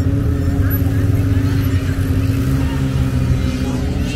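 A vehicle engine idling steadily close by, a constant low hum that neither rises nor falls.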